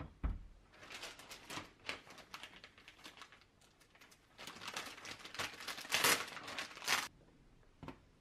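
Plastic packet of flour tortillas crinkling and rustling as it is handled and opened, with the loudest crackling about six to seven seconds in. A soft thump at the start and a short knock near the end.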